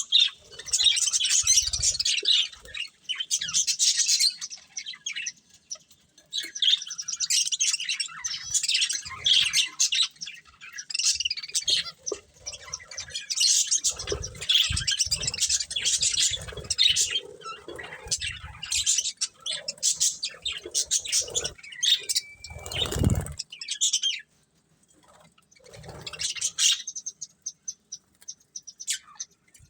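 Budgerigars chirping and chattering busily in rapid, overlapping high chirps, with a few low thumps partway through. The chirping falls away about three-quarters of the way through, leaving only an occasional chirp.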